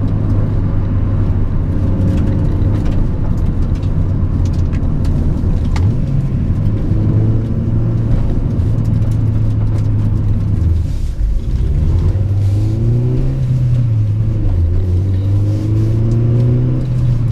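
Honda Prelude's H22A 2.2-litre DOHC VTEC four-cylinder engine under way, its revs climbing in stretches, with a brief drop about eleven seconds in before they climb again.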